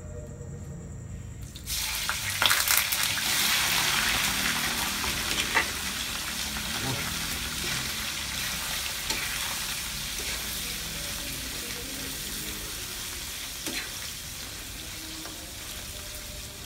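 Boiled pork bulaklak (pork mesentery) hitting hot oil in a wok: a sudden loud sizzle about two seconds in, easing into a steady frying sizzle as it is stirred, with occasional clicks of the utensil against the pan.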